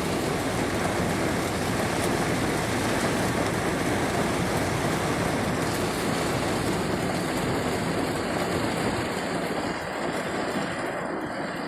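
Heavy rain falling as a steady, even rush, the highest hiss softening a little about halfway through.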